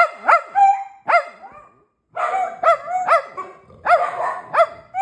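Dog barking in quick runs of short, high, rising-and-falling barks, with a brief pause about two seconds in. The barking is excitement at being asked if it is ready to eat.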